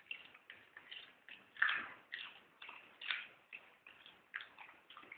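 Italian greyhounds chewing carrots: a run of short, crisp crunches, about three a second.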